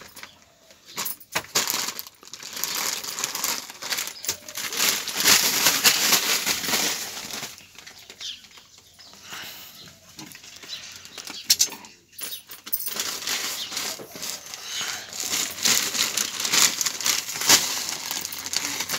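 Plastic snack packets and bags crinkling and rustling as a toddler grabs and pulls at them, in uneven spells with short pauses.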